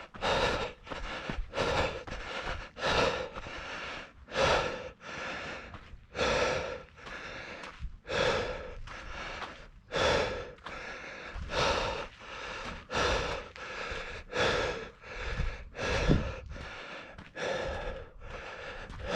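A runner breathing hard and evenly after running, each breath a loud in-and-out pair about every one and a half to two seconds.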